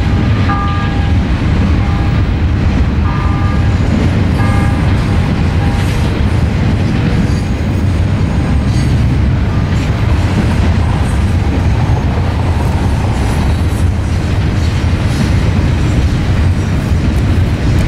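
Double-stack container train cars rolling past steadily with a low rumble, with a few short high-pitched squeals in the first few seconds.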